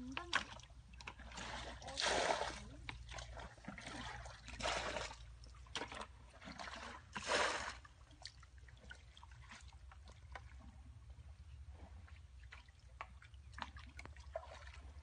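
Muddy water bailed from a pit with a plastic bucket: three loud splashes of poured-out water about two and a half seconds apart. Then quieter sloshing and small splashes of hands working in shallow muddy water.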